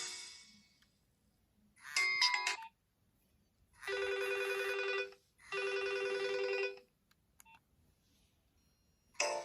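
Nokia 2600 mobile phone playing built-in alert tones through its small speaker. The previous tone rings away in the first half second, then comes a short quick run of beeps, then two steady ring-like bursts of about a second each, like a classic telephone ring. A new melody begins right at the end.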